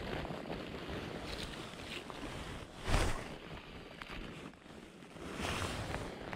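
Wind buffeting the microphone and jacket rustling through a spey cast with a two-handed fly rod, with a sharp whoosh about three seconds in and a longer one near the end as the rod and line are swept through the cast.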